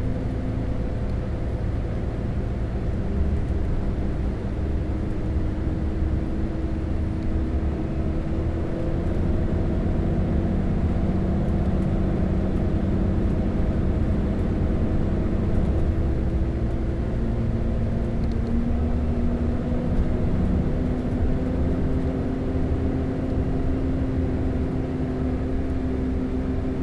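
Double-decker bus engine running on the road: a steady low drone with humming tones that slowly rise and shift in pitch as the bus changes speed, one tone climbing about a third of the way in and another joining near two-thirds.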